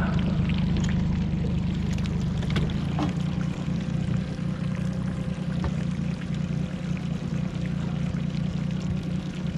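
Yamaha 40 hp outboard motor running steadily at trolling speed, a constant low drone, with water rushing past the boat.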